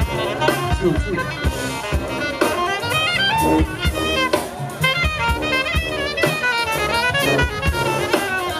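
Live jazz brass band playing: a saxophone plays quick, bending runs at the front over drum kit hits and a low sousaphone bass line.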